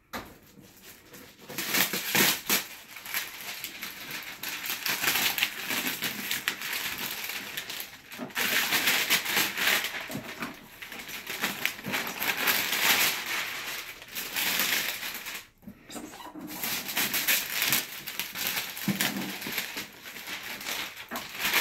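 Clear plastic shrink-wrap being torn and pulled off a cardboard box, crackling and crinkling on and off, with short pauses about 8 and 15 seconds in.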